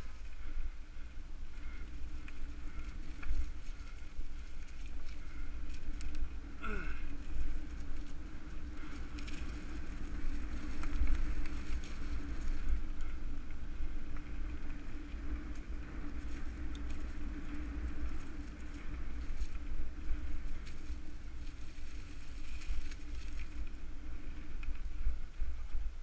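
Mountain bike ridden fast down a dirt singletrack, heard through a handlebar-mounted GoPro: steady wind rumble on the microphone with the rattle of the bike and its tyres on the dirt. A brief falling tone about seven seconds in.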